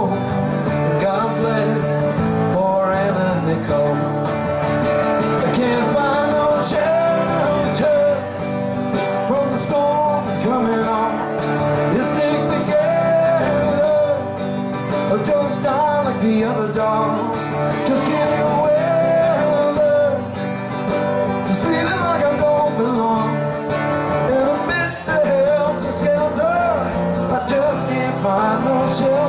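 Live acoustic guitar with a man singing over it. The singer is sick, which he says he can hear in his own voice.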